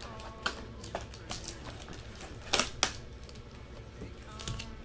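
A cardboard trading-card box and its foil packs being handled on a desk: scattered taps and knocks, with two sharp clicks close together about two and a half seconds in.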